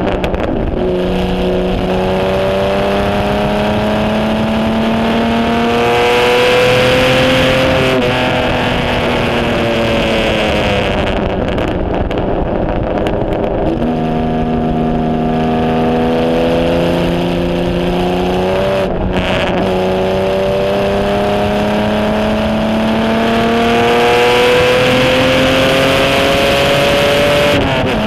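Racing HW Alta-Jaguar's Jaguar straight-six engine under load, heard from the open cockpit. Its note climbs, eases off and climbs again several times as the driver accelerates, lifts and changes gear, with wind rushing past, loudest during the fastest stretches.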